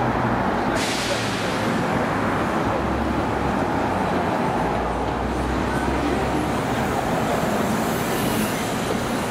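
City street traffic with a heavy vehicle's engine running low and steady. About a second in a sudden hiss starts and fades away over the next few seconds.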